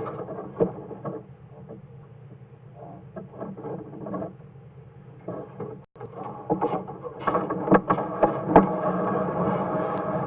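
Sewer inspection camera's push cable being fed off its reel into the pipe: irregular rattling, clicking and scraping over a steady low hum, busier and louder from about six seconds in.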